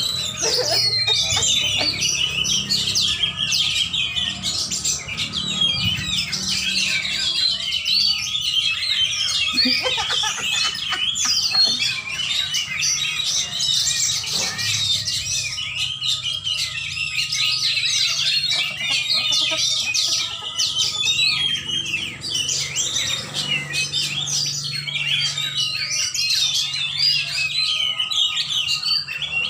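Many caged songbirds singing at once in a dense, unbroken chorus of overlapping high chirps and trills.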